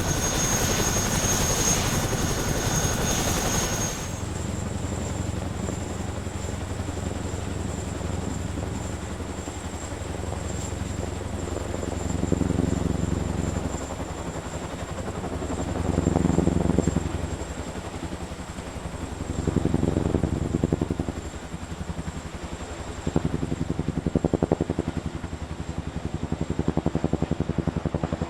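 CH-47 Chinook tandem-rotor helicopter, its twin rotors beating steadily over a high, steady whine. About four seconds in the sound changes abruptly. After that the low rotor thudding swells and fades four times.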